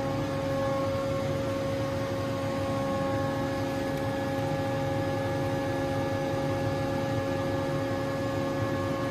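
TRAUB TNS 60 CNC lathe running with its enclosure closed: a steady machine hum with several constant whining tones over an even noise, unchanging throughout.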